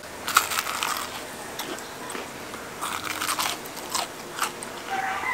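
Crunchy bite into a deep-fried chicken drumstick with a crisp bacalaito-batter crust, followed by chewing with more crackling crunches around the middle and toward the end.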